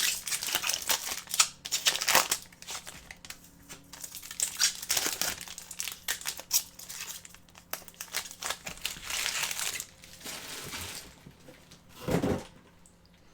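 Trading-card pack wrappers crinkling and rustling in the hands as hockey card packs are opened and cards handled, in an irregular run of short crackles and rustles.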